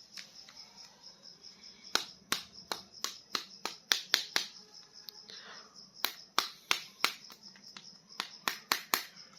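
A run of sharp, irregular plastic clicks and taps from handling toy action figures, over a faint steady high whine.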